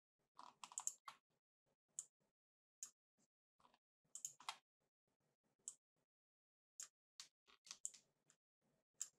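Computer mouse and keyboard clicks: irregular single sharp clicks, with quick clusters of several clicks about half a second in and again near the end.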